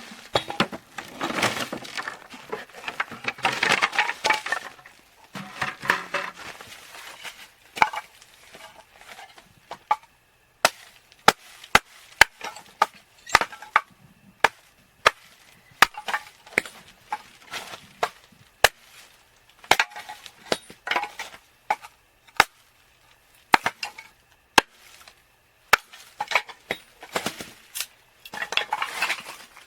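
Crunching footsteps in snow for the first several seconds. From about ten seconds in comes a long run of sharp, irregular cracks and clicks, roughly one a second.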